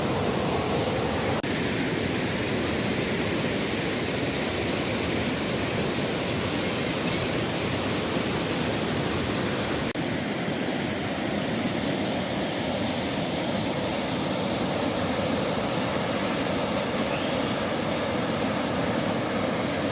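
Steady rush of falling and flowing water, an even hiss-like roar that holds level throughout.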